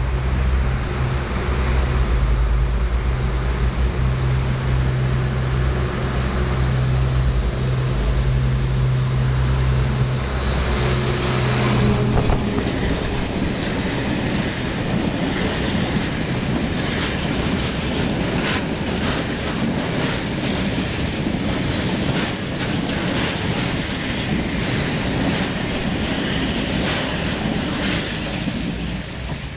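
A freight train hauled by a diesel locomotive passes close by. A steady low engine drone builds as the locomotive approaches and goes past about twelve seconds in. Then the freight wagons rumble and rattle by, with repeated clacks of wheels over the rail joints.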